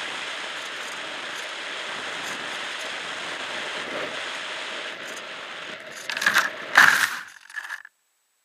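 Steady rush of air over the onboard camera of a Multiplex EasyStar foam RC plane flying low, then a few loud knocks and scrapes about six to seven and a half seconds in as it touches down and skids into dry grass. The sound then cuts off abruptly.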